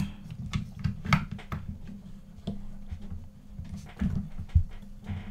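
Irregular clicks and knocks from a plastic segmented flexible helping-hands arm being bent and set into position on a workbench, the sharpest knocks about a second in and again near four seconds, over a steady low hum.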